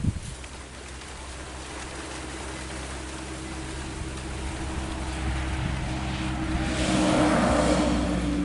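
A small covered truck's engine running at a steady speed as it approaches along the road. It grows gradually louder, and tyre and road noise swells near the end as it comes close.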